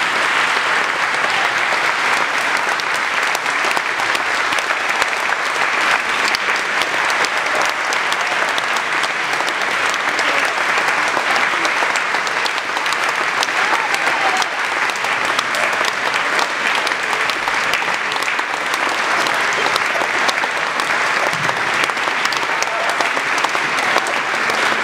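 Concert hall audience applauding steadily, a dense, unbroken clapping.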